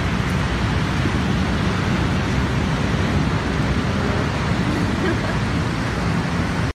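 A steady, loud rushing noise with no clear pitch or rhythm.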